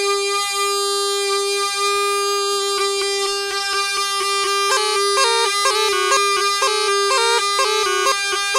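Snake charmer's pungi (been) playing: a steady reedy drone under a melody that begins on long held notes and breaks into quick, ornamented note changes from about three seconds in.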